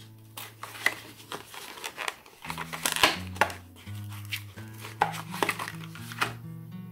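Plastic blister pack of Sharpie markers being handled: repeated crackling and sharp clicks of the plastic as it is turned and a marker is pulled free, over background music.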